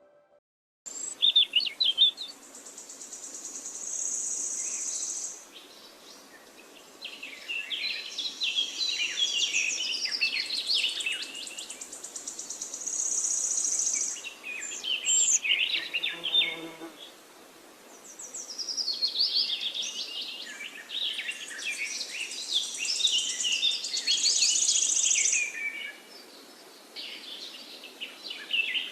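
Outdoor nature ambience: several birds chirping and singing, with high buzzing insect-like trills that swell for a few seconds at a time and fade, and a short lull partway through.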